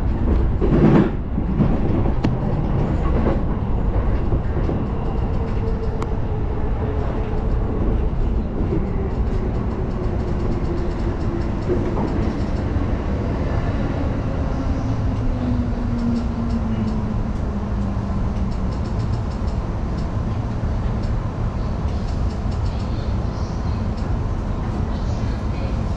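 JR Yokohama Line electric train running with a steady rumble as it slows for a station. Its motor whine falls slowly in pitch over about ten seconds through the middle, and faint clicking of wheels over rail joints comes near the end.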